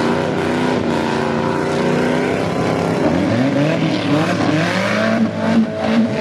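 A motor vehicle engine running steadily, then revving several times in the second half, its pitch rising with each rev.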